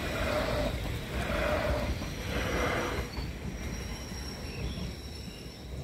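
Electric multiple-unit passenger train passing close by. Its running noise swells and dips about once a second, then thins out and fades after about three seconds as the train moves away.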